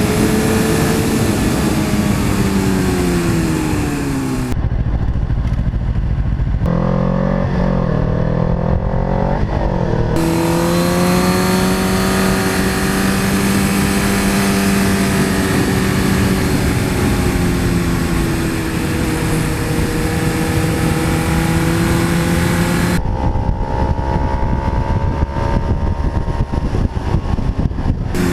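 Suzuki GSX-R 1000 inline-four with a Yoshimura R-77 full exhaust running on the road, with wind rush. Its pitch falls a few seconds in as the throttle comes off, then holds steady at cruising revs. Twice the sound switches for several seconds to a duller recording of a bike engine, without the wind hiss.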